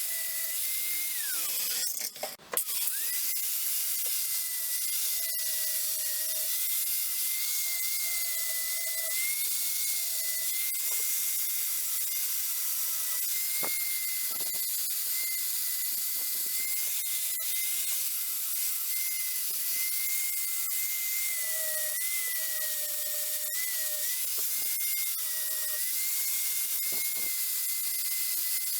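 Angle grinder with a flap disc grinding the pitted steel head of a half hatchet. It gives a steady high whine over a hiss, and the pitch wavers slightly as the disc is worked over the metal. About two seconds in the whine briefly drops and then recovers.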